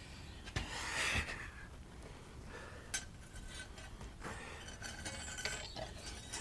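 Hard parts of a bait pump clinking and scraping as it is worked apart by hand, with a few sharp clicks and a faint squeak in between.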